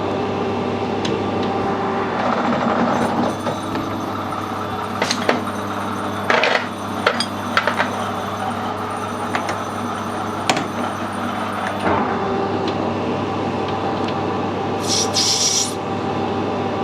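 Metal lathe running while the cutting tool turns a brass fitting: a steady machine hum with the rough scrape of the cut and scattered small clicks.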